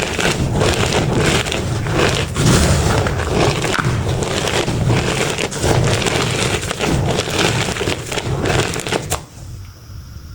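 Pressed powder reform blocks being crushed and crumbled, a dense run of crisp, crackly crunches that stops suddenly about nine seconds in.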